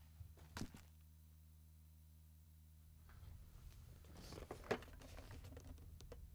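A quiet low hum, with a soft knock under a second in. From about three seconds in come rustling and scraping as a person shifts about and handles things in a cramped space, with one sharp click near the middle.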